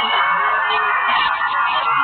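Audience, mostly high-pitched voices, screaming and cheering steadily over background music.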